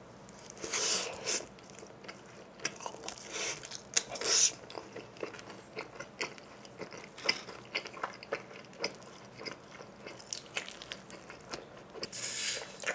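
Close-miked chewing of thick cheese-pizza crust, with wet smacks and crunchy bites repeating unevenly and a few louder bites. Near the end comes a short hiss as a bottle of sparkling water is twisted open.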